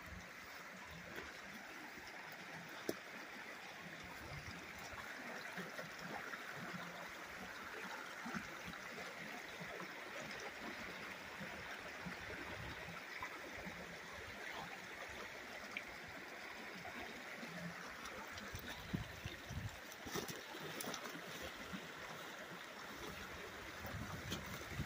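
Shallow mountain river at low summer flow, running steadily over rocks with a rushing trickle.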